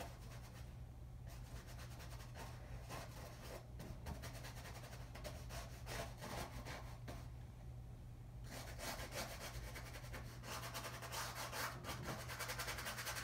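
Paintbrush scrubbing paint onto a canvas in short, quick strokes, busier in the last few seconds, over a steady low hum.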